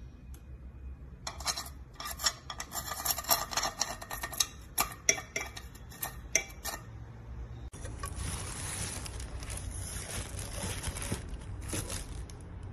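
Metal tongs tapping and scraping on a Tefal Cook Healthy nonstick frying pan, a rapid, irregular run of sharp clicks. About eight seconds in, the sound cuts to a steady hiss.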